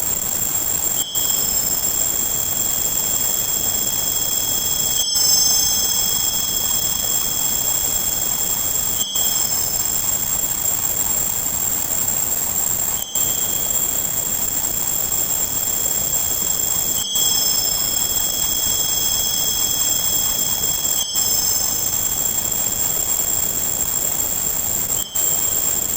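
Tinnitus-masking sound: a steady hiss with several high, steady tones laid over it, some switching on and off, repeating in a loop about every four seconds with a brief dropout at each repeat.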